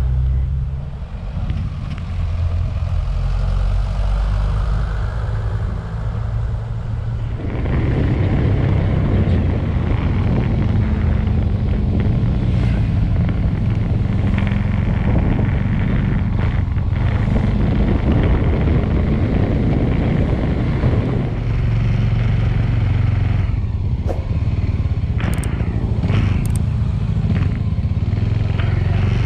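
Motorcycle riding through town: the engine runs with rushing wind noise on the bike-mounted camera's microphone. The sound grows suddenly louder about seven seconds in and stays steady, with a few short clicks near the end.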